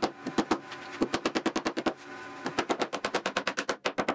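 A mallet tapping plywood parts in rapid runs of sharp knocks, about eight to ten a second in three bursts with short pauses, seating the glued pieces into place.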